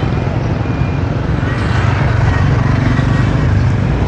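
Steady low rumble of motor vehicles, motorbikes among them, running close by.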